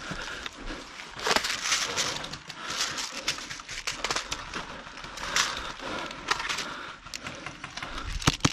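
Footsteps and gear noise of a player moving in airsoft kit, in uneven bursts about once a second. A quick run of sharp clicks comes near the end.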